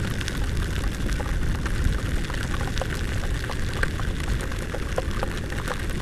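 Heavy rain pattering on a helmet-mounted camera during a scooter ride, with many small scattered drop ticks over a steady low rumble of riding on a wet road.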